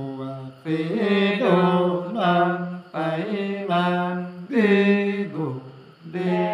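Two men singing a traditional folk song together without accompaniment, in long held notes that slide at the ends of phrases, with short breaks between phrases.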